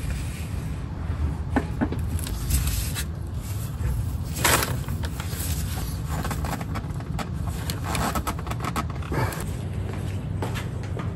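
A new spin-on oil filter being hand-threaded onto the diesel engine from underneath: scattered scrapes and clicks of hand and metal against the filter and engine, with one louder scrape about four and a half seconds in, over a steady low hum.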